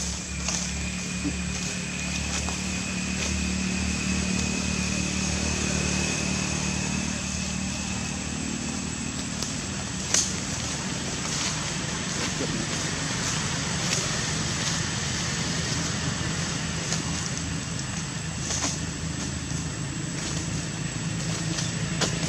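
A steady low motor hum, like an engine running, with a thin high steady tone over it for the first half and a few sharp clicks, the loudest about ten seconds in.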